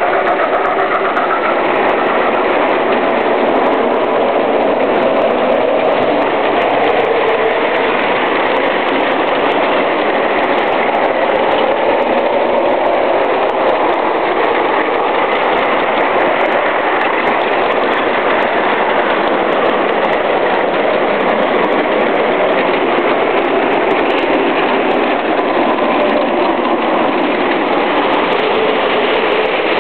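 Wheels of a long train of ride-on scale-model freight cars rolling past on their track, a steady, even rolling rattle.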